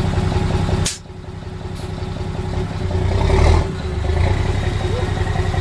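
Mitsubishi Fuso truck's diesel engine running, with a sharp click about a second in as the engine note suddenly drops. The engine then revs up over the next couple of seconds and settles back to a steady run.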